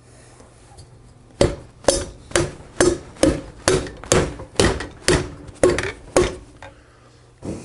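Harley-Davidson Evo cast cylinder being struck down by hand over the piston and its rings, which are held in a ring compressor. About a dozen sharp knocks come roughly two a second, starting about a second and a half in, each with a short metallic ring.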